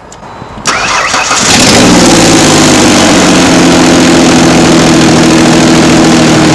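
The 4.0-litre V6 of a 2004 Ford Explorer is briefly cranked by the starter and fires within about a second, then runs steadily. This is the engine cranking and starting after a new transmission range sensor (neutral safety switch) was fitted to cure a no-crank fault.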